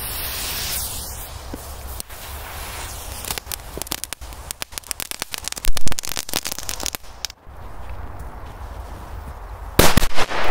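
Firecrackers going off. A hiss is followed by about four seconds of rapid crackling pops with one loud bang in the middle, and near the end there is a loud double bang.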